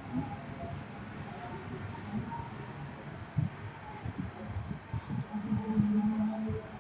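Computer mouse button clicking, a few quick clicks at a time, over low thumps and a short low hum a little after five seconds in.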